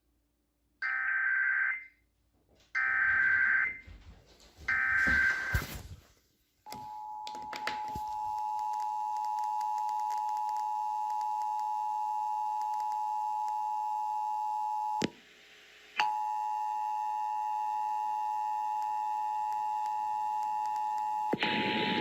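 Emergency Alert System tones: three bursts of about a second each of the SAME digital data header that encodes the alert, then the two-tone EAS attention signal (853 and 960 Hz sounding together). The attention signal holds steady, drops out for about a second midway, and stops near the end.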